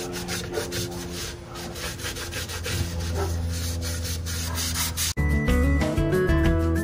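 Gloved hand rubbing and wiping over the rough, textured oak surface, cleaning off sanding dust with denatured alcohol: repeated scratchy strokes over a steady low hum. About five seconds in it cuts abruptly to background music.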